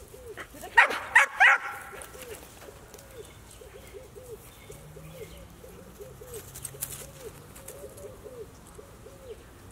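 Dog barking three times in quick succession about a second in, followed by a faint short call repeated two or three times a second.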